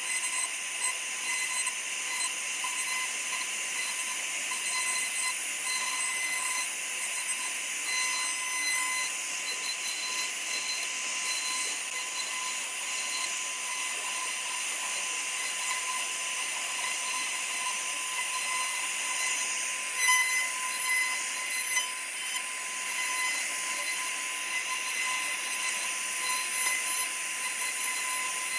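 CNC router spindle running with the bit cutting wood: a steady high-pitched whine over a hiss of cutting noise, with a few brief louder peaks about twenty seconds in.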